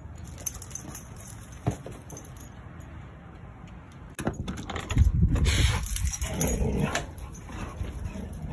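Metal tags on a dog's collar jingling as the dog moves, with scuffing and rustling growing louder from about four seconds in as it runs.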